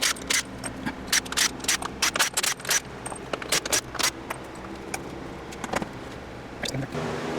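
Sharp, irregular metallic clicks and scrapes of hand tools working on the engine, a few a second at first and thinning out after about three seconds. A steady hum comes in near the end.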